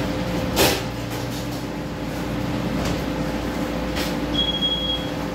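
Steady machinery hum with a low rumble and a constant drone. A sharp knock comes about half a second in, a few fainter clicks follow, and a brief high beep sounds near the end.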